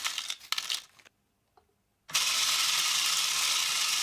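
Small steel screws poured from a plastic bag into a 3D-printed drum, the bag crinkling and the screws clattering. About two seconds in, the motor drives the drum, and a steady loud rattle of screws tumbling in the spinning drum sets in; the drum is turning way too fast.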